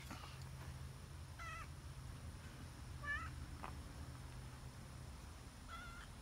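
Young tabby cat meowing three times, short high meows spaced a second and a half to two and a half seconds apart.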